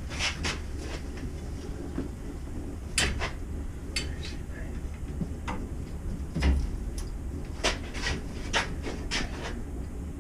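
Irregular sharp clicks and knocks of metal tools and pipe parts being handled and set down, a dozen or so spread out, the loudest about two-thirds of the way in, over a steady low hum.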